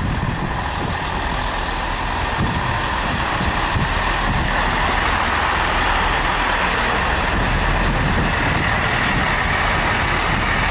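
Two-car Class 165 diesel multiple unit running at the platform as it draws to a stand. A steady, noisy rumble that grows a little louder over the first few seconds.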